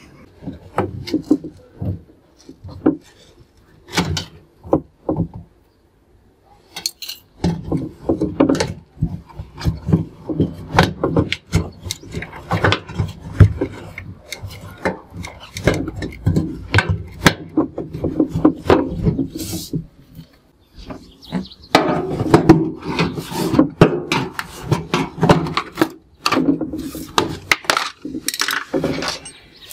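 Hands working the rubber door gasket loose from the front panel of a Whirlpool front-loading washing machine: rubbing and scraping with many knocks and clicks, sparse at first, then nearly continuous from about seven seconds in.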